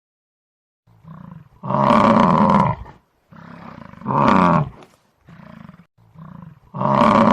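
A large animal calling: three loud calls, each coming after a quieter one, in a regular back-and-forth rhythm.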